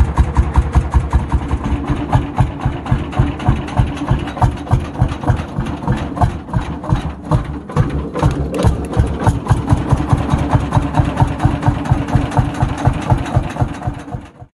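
Lanz Bulldog tractor's single-cylinder two-stroke engine idling with a fast, even beat of exhaust pulses, cutting off suddenly near the end.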